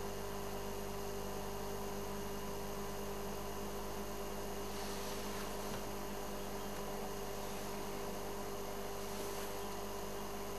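Steady electrical hum and hiss holding several fixed pitches, with a faint rush of higher hiss swelling briefly about five seconds in and again near the end.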